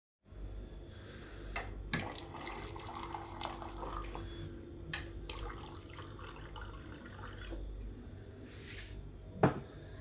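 Cold water running from a hot-and-cold water dispenser's tap into a drinking glass, with a few small clicks. About nine seconds in comes one sharp knock, the glass being set down on a wooden table.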